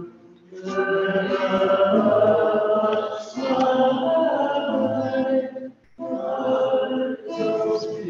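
Voices singing a hymn with classical guitar accompaniment, in sung phrases with short breaks between them about half a second in and again near six seconds.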